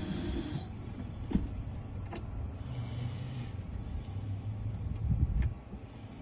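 A key-cutting machine's high whine stops about half a second in. A low hum and a few sharp clicks follow.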